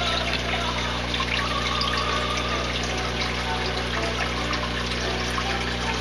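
Aquarium filter running: a steady low hum under trickling, splashing water with small scattered drips.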